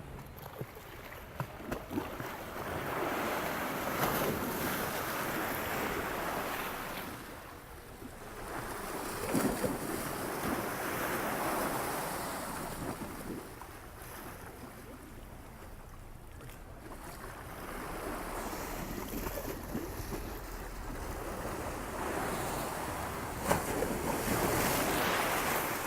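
River Thames water washing against the embankment in slow swells that rise and fall several times, with wind on the microphone.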